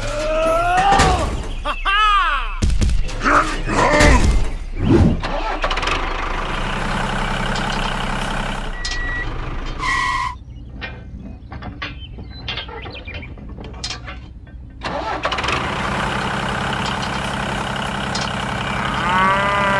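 A tractor-like engine running steadily with a low, even hum. It follows a few seconds of cartoonish gliding voice-like sounds, drops away for a few seconds in the middle, then comes back.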